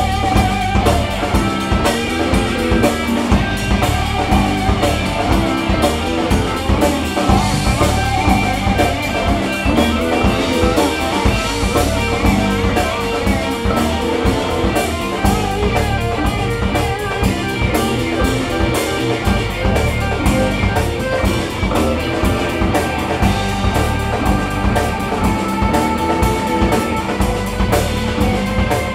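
Live alt-country rock band playing an instrumental stretch of a song: guitars over bass guitar and a steady drum-kit beat.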